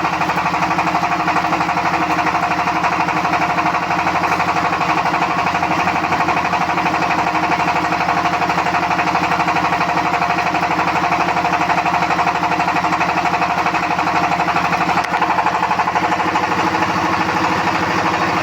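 A machine running steadily with a fast, even pulse and a constant hum, without let-up.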